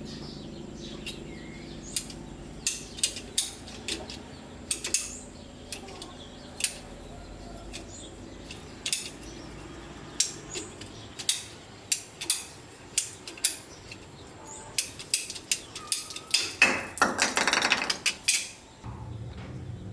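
Metal clinks and knocks of tools and parts being handled, irregular throughout, with a louder rapid rattling burst of about a second and a half near the end.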